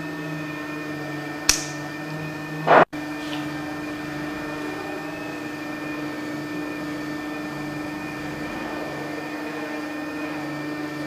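Steady electrical machine hum throughout. About a second and a half in, a sharp snip as side cutters cut through a thin copper wire. A loud brief crackle follows about a second later and cuts off in a sudden dropout, like a recording splice.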